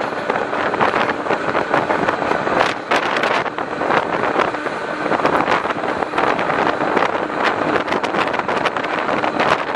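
A passenger train running at speed, heard from inside the carriage: a steady rumble and rush of wheels on rails, with many small rattles and knocks.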